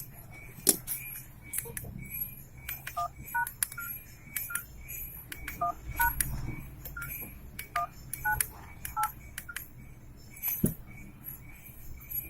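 Samsung SM-B350E keypad phone dialing a number: a series of short, irregularly spaced two-tone keypad beeps with key clicks, as a call is placed to check that the phone's network now works.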